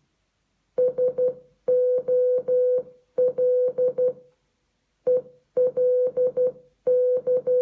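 Morse code played by an Amazon Echo speaker: one steady mid-pitched tone keyed into short and long beeps (dits and dahs), grouped into letters with short pauses between them, spelling a word for the listener to decode.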